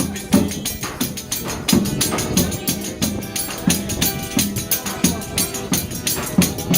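Forró pé de serra played live: a fast, steady triangle ticking over regular zabumba bass-drum thumps, with accordion.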